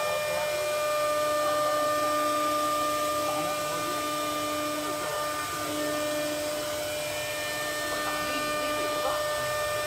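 Auto-tool-change CNC router humming steadily with several high electrical whining tones while its spindle lowers a tool onto the tool-length sensor and lifts it again; the lowest tone drops out briefly about halfway through.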